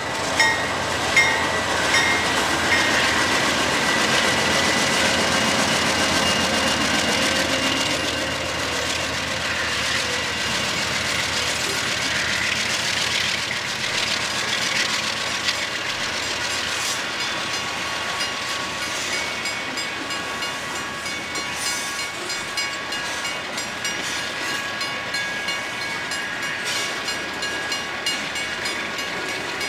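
A freight train of tank cars rolling past, its wheels rumbling and clattering steadily on the rails, with a few sharp clicks in the first couple of seconds.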